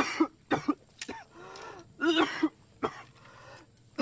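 A man's short, breathy vocal sounds: grunts and gasping exclamations, about six in quick succession with short pauses between them.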